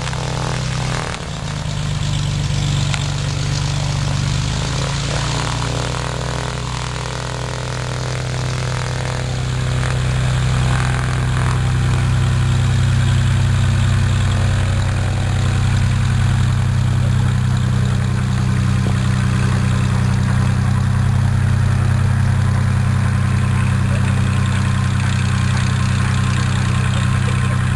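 Light aircraft piston engines and propellers running at low taxi power, a steady low drone; the pitch rises and falls a little in the first ten seconds.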